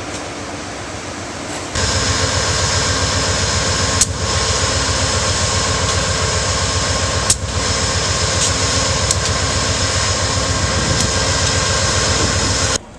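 Amtrak GE P42DC Genesis diesel locomotives idling: a loud, steady engine rumble with several held whining tones from the blowers and fans. It starts suddenly about two seconds in, after a fainter steady noise, and two sharp clicks stand out about four and seven seconds in.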